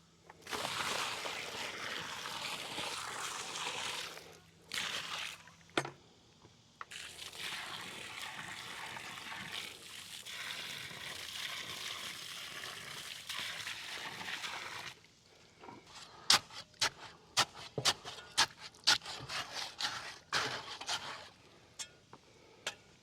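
Water poured from a pail into a post hole filled with dry cement mix, twice: a pour of about four seconds, then a longer one of about eight. After that comes a run of sharp clicks and knocks lasting several seconds.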